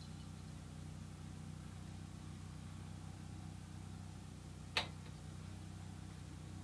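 A single brief, light ding of a small bell clipped on an ice-fishing rod about five seconds in, the sign of a very slight bite at night. Under it runs a steady low hum.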